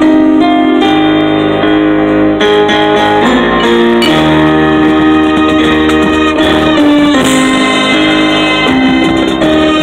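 High school marching band playing its field show music: held chords that change every second or so, with the front ensemble's keyboard percussion close by.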